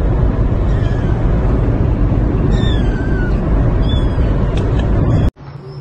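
A ginger kitten gives a few short, falling meows over a loud, steady low rumble of car noise. The rumble and meows cut off suddenly near the end.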